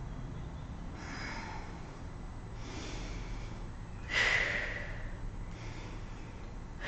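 A woman breathing out hard through nose and mouth while holding a seated abdominal exercise: several short breaths, the loudest about four seconds in.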